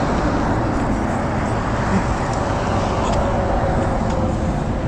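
Steady rush of wind on the microphone of a moving bicycle, mixed with road traffic noise from passing cars, with a faint falling tone in the second half.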